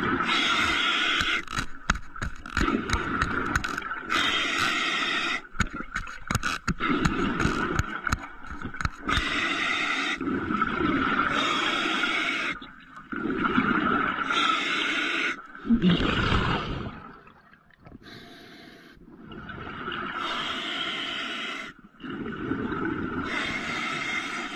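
A diver breathing underwater from a surface compressor's air line: hissing inhalations alternate with rumbling exhaled bubbles, each lasting a second or two. There is a run of sharp clicks and knocks in the first several seconds.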